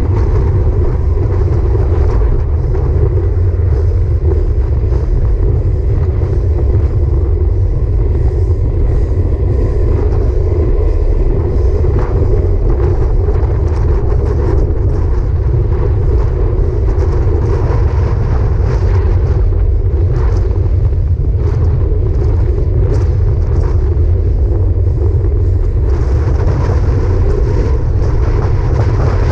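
Steady, loud rumble of wind buffeting the microphone of a handlebar-mounted action camera on a road bike at about 25 mph, mixed with road noise from the bike.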